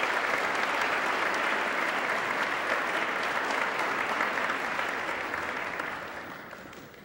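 Audience applauding: many hands clapping steadily, fading away over the last two seconds or so.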